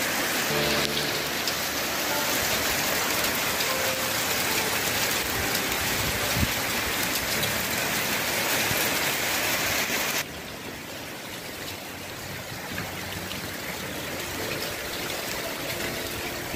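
Hail falling hard on grass, gravel and a wooden deck: a dense, steady clatter of small hailstones. About ten seconds in it drops suddenly to a quieter level.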